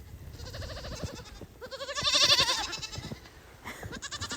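Goat kids bleating with a quavering voice: a fainter bleat, then a louder one about a second and a half in, and another starting near the end.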